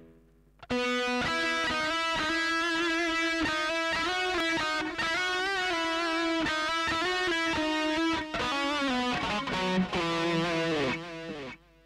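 Electric guitar played through a Mooer GE100 multi-effects processor on a reverb preset, a melodic line of held single notes, some with vibrato. It starts under a second in and stops abruptly near the end.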